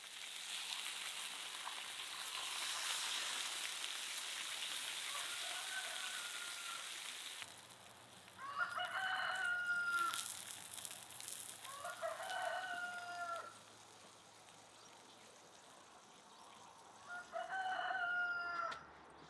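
Water hitting a hot pan of fried potatoes and chicken sizzles loudly for about seven seconds, then cuts off sharply. A rooster crows four times, the first faintly, as the sizzle ends.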